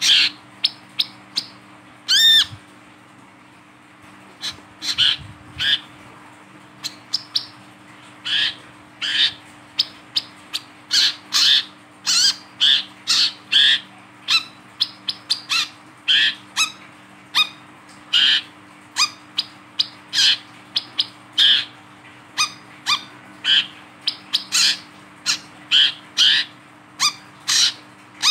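Male brown-throated sunbird (wiceh, kolibri kelapa) calling while held in the hand: a fast series of sharp, high chirps, many sliding downward, about two a second. There is a pause of about two seconds a couple of seconds in.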